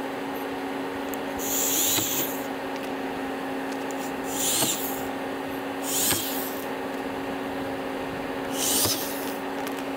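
Corded electric drill with a small bit running at steady speed while drilling pilot holes through a fiberglass duckbill spoiler on the car's trunk lid. Four times, about every two seconds, a harsh high-pitched grinding rises over the motor's whine as the bit bites into the material.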